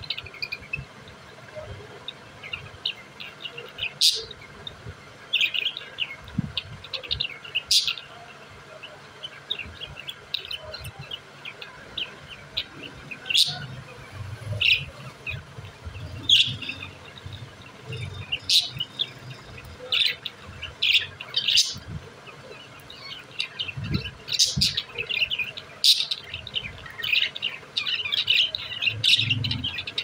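A flock of caged budgerigars chattering: a constant stream of quick, high chirps and warbles, broken by about ten louder, sharper calls spread through.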